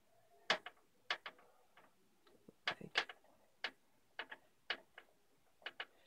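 Screwdriver turning the screw that holds a graphics card's metal bracket to the PC case slot panel: a run of irregular sharp metal clicks and ticks.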